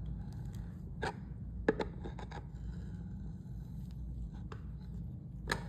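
Light clicks and scraping of a wall clock movement's mounting nut being tightened down over its washer, with a cluster of clicks about two seconds in, over a steady low hum.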